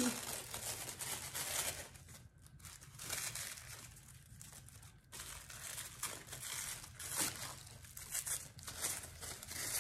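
Brown paper wrapping crinkling and rustling as a candle is pulled out of it by hand, coming and going unevenly with a few brief quieter spells.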